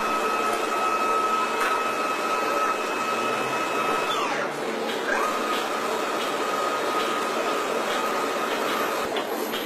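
Automated engine-line machinery running with a steady, high electric-motor whine over a background factory hiss. The whine winds down about four seconds in, stops briefly, then spins back up to the same pitch and holds, like a drive motor stopping and restarting between moves.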